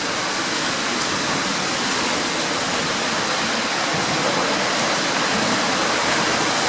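Steady, even rushing noise with no distinct events, like running water or air.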